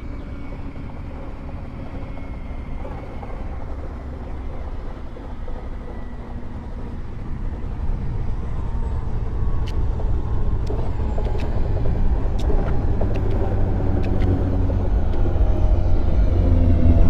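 A train approaching, its low rumble and motor hum growing steadily louder, with sharp wheel or rail clicks from about halfway.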